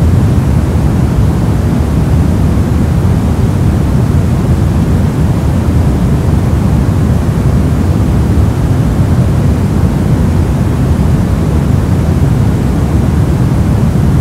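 Steady soft noise, deep and even, weighted toward the low end like pink noise, with no changes, tones or clicks.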